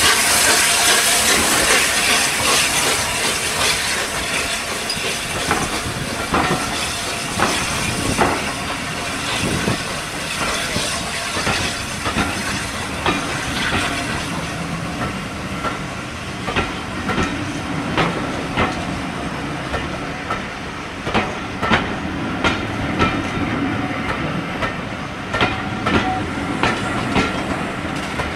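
Steam hissing from the passing A1 Pacific 60163 in the first few seconds, fading as its tender goes by. Then the wheels of the following coaches click over the rail joints, the clicks coming more often toward the end.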